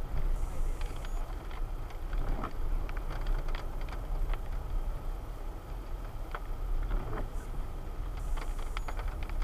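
Moving car heard from inside the cabin: a steady low road and engine rumble, with scattered light rattles and clicks.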